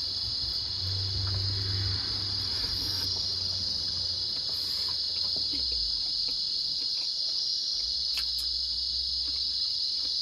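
Crickets chirring in a steady, unbroken high trill, with faint small clicks from eating by hand.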